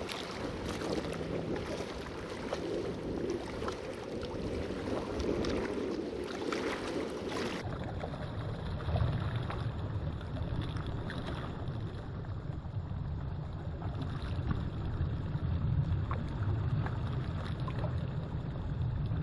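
Steady wind and water noise at a rocky shoreline, with wind rumbling on the microphone. The sound changes abruptly about seven and a half seconds in.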